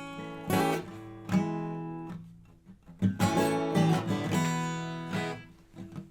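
Acoustic guitar strummed, each chord left to ring and die away, with a short lull a little over two seconds in before the strumming picks up again.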